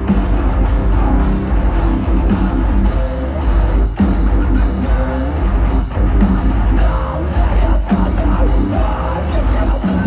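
Metalcore band playing live at full volume: heavy distorted guitars and bass over pounding drums, with vocals, heard from within the crowd.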